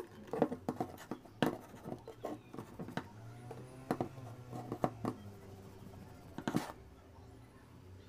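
Handling noises as a cloth face mask is smoothed and pressed with an electric iron on a tabletop: an irregular run of light knocks, clicks and scratches of the iron and hands on cloth and table, with one louder knock about six and a half seconds in. A faint low steady hum runs underneath.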